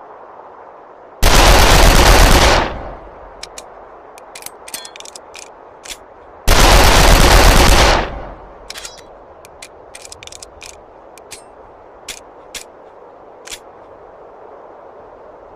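C96 Mauser pistol firing two bursts of rapid automatic fire, each about a second and a half long, a few seconds apart, followed by scattered light clicks.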